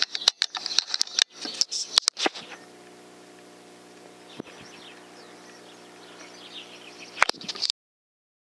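Small birds chirping and singing, with a run of sharp clicks and knocks in the first two and a half seconds and a steady low electrical hum under it all. The sound cuts off abruptly near the end.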